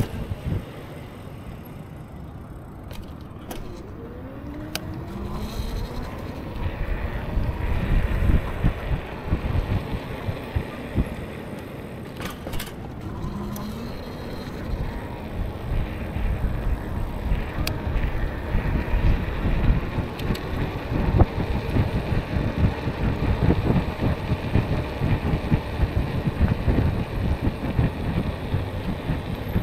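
Wind rushing over the microphone and road noise from an e-bike ride, a heavy fluttering rumble that swells and eases, with a few sharp clicks and a couple of faint short rising whines.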